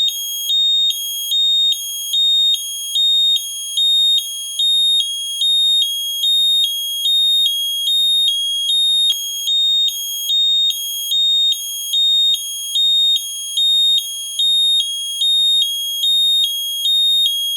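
Garrison gas leak detector alarm sounding: a shrill electronic tone switching back and forth between two high pitches, a full cycle a little under a second, repeating without a break.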